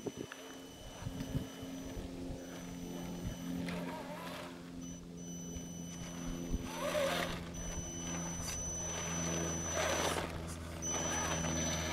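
Radio-controlled 8x8 trial truck crawling over gravel: a steady low motor hum, with short bursts of crunching noise about seven and ten seconds in.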